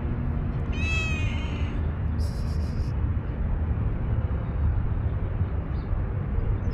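Tuxedo cat meowing once, a short call about a second in, with a brief high hissing noise just after, over a steady low background rumble.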